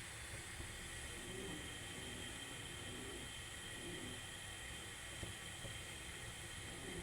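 Pot of spiced kadha simmering on a gas stove, giving a faint steady hiss.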